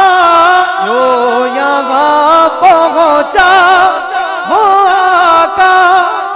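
Male naat reciter singing long, wavering melismatic notes into a microphone, without words.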